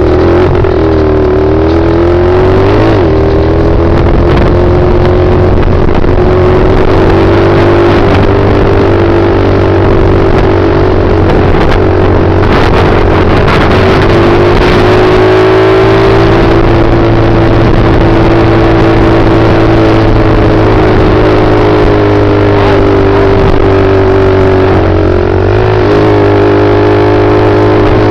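110cc pit bike's single-cylinder four-stroke engine running under way, heard loud and close from a helmet-mounted camera. Its pitch drops and picks up again in the first few seconds, then holds fairly steady with small rises and falls as the throttle changes.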